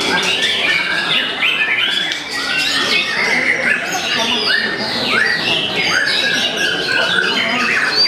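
White-rumped shamas singing: a rapid, unbroken stream of short whistled sweeps and harsh chattering notes, several birds overlapping.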